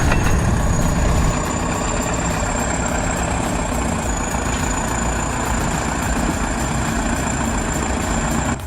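Heavy diesel vehicle engine running steadily, with a thin, steady high-pitched whine over it.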